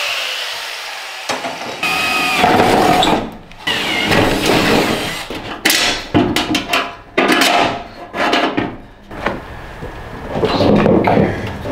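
Metalworking in a shop: a power tool running on steel bar stock at first, then a run of metal clanks, knocks and rattles as steel parts are handled against a steel ammo can, some strikes leaving a short ring.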